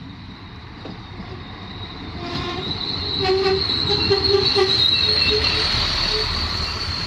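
Regional passenger train pulling into a station and running past the platform, with a high, steady wheel and brake squeal as it slows. The train gets much louder about two seconds in as the front passes.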